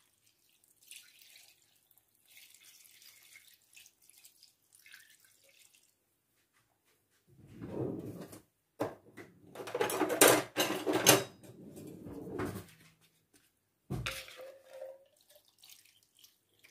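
Cream sauce being stirred with a spoon in an enamel pot and poured over sliced potatoes in a metal baking tin. The spoon clinks and scrapes against the pot in a burst of clatter in the middle, followed by a single knock a couple of seconds later.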